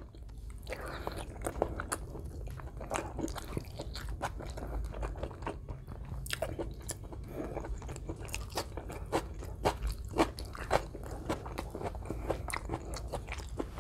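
Close-up chewing of a hand-fed mouthful of rice and beef, many small crunches and mouth clicks in an uneven stream.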